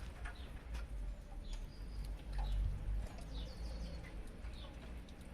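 Birds chirping in short, scattered calls, including a quick run of falling notes in the middle, over a steady low rumble.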